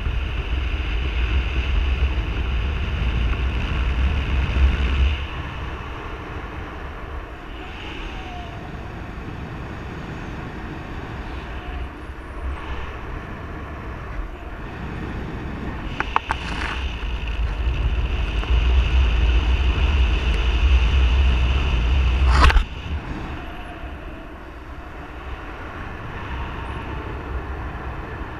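Rushing airflow and wind buffeting on the microphone of a paraglider in flight, a steady rumble and hiss. It swells twice, early and again about two-thirds through, then drops suddenly at a sharp click.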